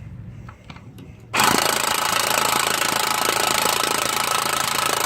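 A power tool runs in one steady stretch of about four seconds, starting abruptly about a second and a half in, with a faint whine in it, driving the factory scissor jack to raise the car a little higher.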